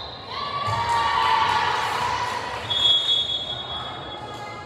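Volleyball spectators shouting and cheering, with a high held tone for about a second and a half near the middle.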